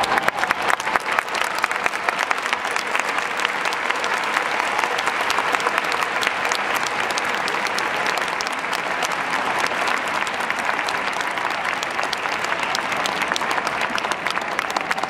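Large stadium crowd applauding: dense, steady clapping of many hands.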